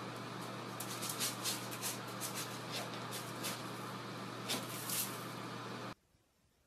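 Cat scratching and digging in a plastic litter box, a run of short rattling scrapes of loose litter over a steady low hum; the sound stops suddenly near the end.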